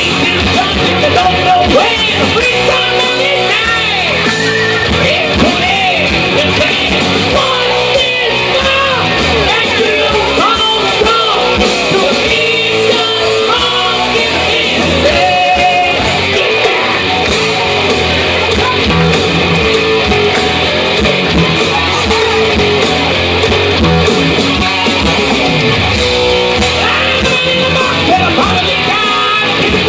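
A man singing karaoke into a microphone over a loud rock backing track with electric guitar.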